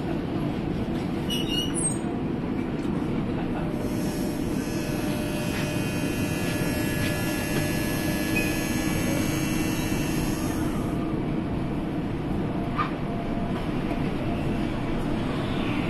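Suspended monorail cabin of the Düsseldorf Airport SkyTrain running along its elevated guideway, heard from inside: a steady low rumble, with a high electric whine from about four to eleven seconds in.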